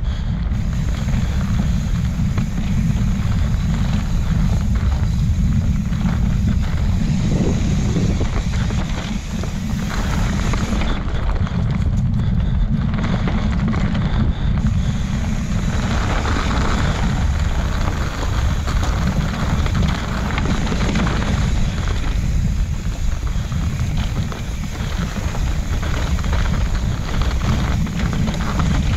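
Wind buffeting the microphone of a mountain bike rider on the move, a steady loud low rush, with a constant patter of small knocks and rattles from the bike and its tyres on the dirt trail.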